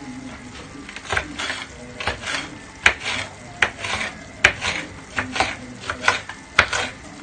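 A kitchen utensil scraping and clinking against a cooking dish in uneven strokes, with several sharp clinks among them, as ingredients are moved or stirred.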